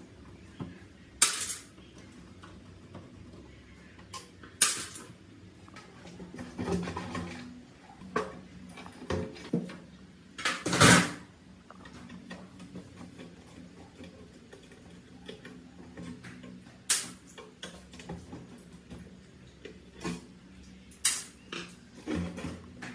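Hard metal parts and tools being handled on a work surface: scattered sharp clinks and knocks, about five loud ones with softer rattling in between, the loudest about eleven seconds in.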